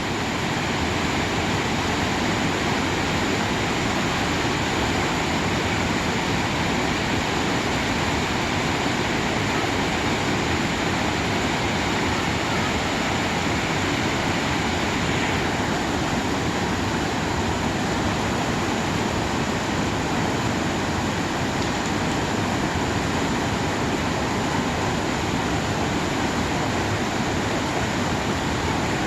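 A mountain valley stream running high after swelling overnight, its water rushing in a steady, unbroken noise.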